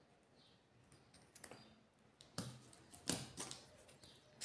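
Faint, scattered clicks and rustles of hands handling scissors, a plastic crochet hook and nautical cord, a few small ticks a second apart after a near-silent first second.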